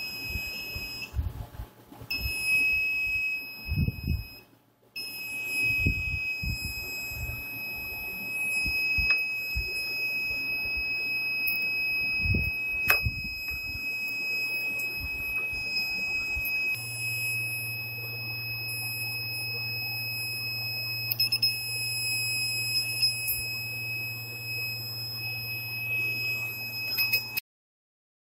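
Buzzer of a homemade door alarm sounding a steady high-pitched tone. It breaks off briefly twice early on, then sounds continuously until it cuts off suddenly near the end. A few low knocks from handling sound underneath in the first half.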